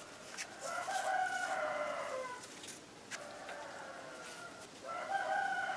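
A rooster crowing twice: one long crow in the first two seconds, and a second starting near the end.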